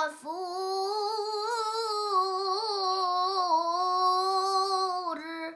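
A girl's voice in melodic Quranic recitation (tilawah), drawing out one long ornamented note with a wavering pitch to close a verse, then stopping abruptly near the end.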